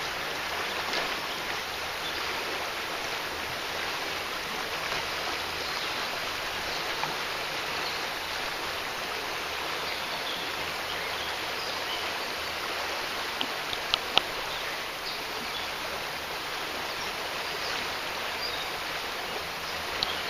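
Swatara Creek rapids: shallow creek water rushing steadily over the riffles, with a few short clicks a little past the middle.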